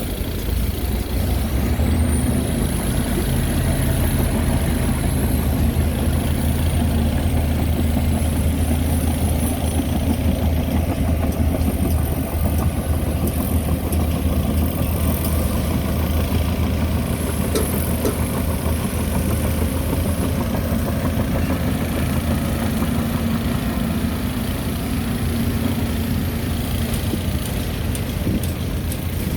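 Heavy diesel engine of earth-moving machinery running steadily, with a deep low drone throughout and a brief high whine that rises a couple of seconds in and fades out a few seconds later.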